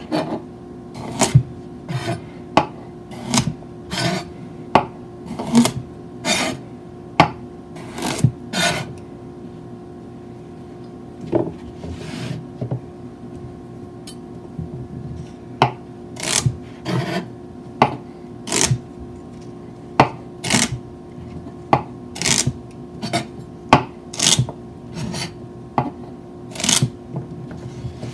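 Chef's knife chopping carrots and celery into big chunks on a plastic cutting board: irregular sharp chops of the blade through the vegetable onto the board, about one a second, with a pause about halfway through.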